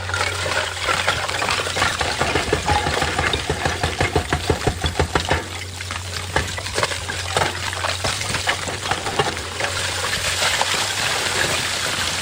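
Excavator engine running with a steady low hum while rock and stone clatter in rapid knocks, densest in the first half.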